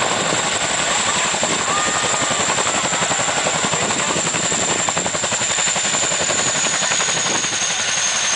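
CH-47 Chinook tandem-rotor helicopter hovering low and settling onto the ground: loud, rapid rotor-blade chop with the high whine of its twin turboshaft engines, which dips slightly in pitch near the end.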